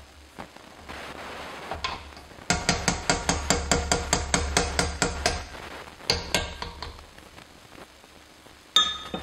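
A metal potato masher clanking against a cast-iron pot of fruit jam: a rapid run of ringing knocks, about six a second for nearly three seconds, then a couple more. Near the end there is one sharp ringing clink.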